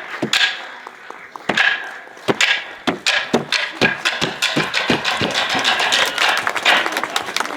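Kabuki wooden clappers struck sharply against wood: a few spaced cracks, then strokes that come faster and closer together.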